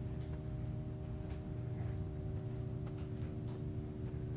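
Quiet room tone: a steady low hum made of several fixed tones, with a few faint clicks.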